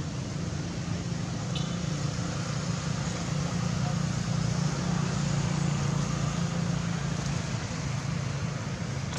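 Steady low rumble and hiss of outdoor background noise, like road traffic, with a brief faint high squeak about one and a half seconds in.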